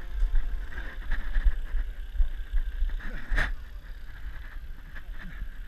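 Rumbling and scuffing from a body-worn action camera as the runner scrambles over mud and crawls under barbed wire, with rustles and one sharp knock about three and a half seconds in.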